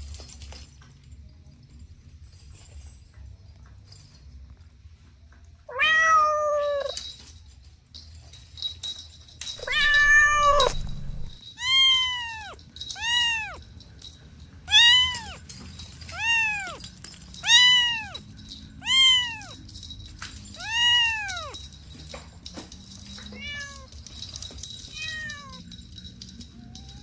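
A cat meowing repeatedly: two longer meows, then a steady run of short meows that rise and fall in pitch, one about every second and a half, the last two fainter.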